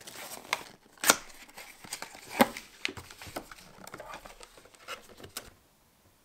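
A cardboard filament box being handled and opened and a spool of PLA filament pulled out: irregular knocks and cardboard scrapes, two of them sharp, with some crinkling, stopping about five and a half seconds in.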